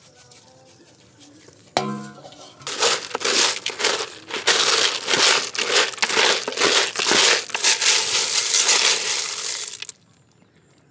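Cooked tiny snails in their shells being stirred in a clay pot: a dense crunchy rattling and scraping of many small shells, from about three seconds in until it cuts off abruptly near the end.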